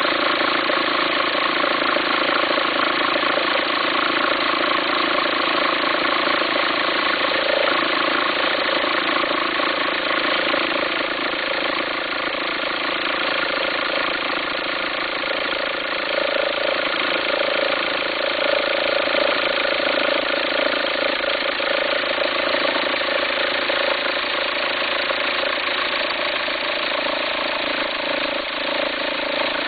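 A 2004 VW Passat's 1.9 TDI four-cylinder diesel idling steadily, with a farting, rumbling noise that comes with the accessory belt appearing to jump, which the owner suspects is a worn alternator pulley.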